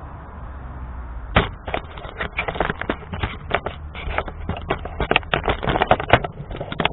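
Sandpaper worked by hand over a fiberglass boat hull's gelcoat. Starting about a second in, it makes rapid, irregular short strokes, several a second.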